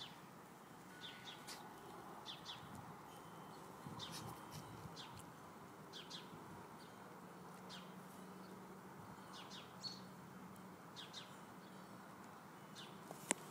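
Faint birds chirping, short high calls often in pairs about every second, over a quiet background hiss. A sharp click comes near the end.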